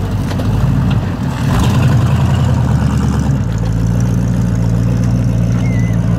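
Early-1970s Ford Mustang's 351 Windsor V8 running at low revs through its exhaust as the car rolls away slowly. The note changes a little over three seconds in, then settles into a steady low rumble.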